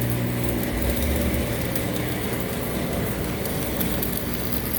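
Steady low machine hum with a constant pitch.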